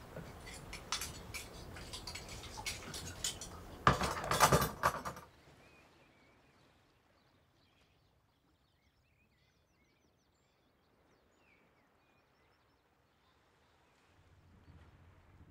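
Washing up at a kitchen sink: dishes and cutlery clinking and knocking, with a louder noisy burst about four seconds in. Then it cuts to near silence with a few faint bird chirps.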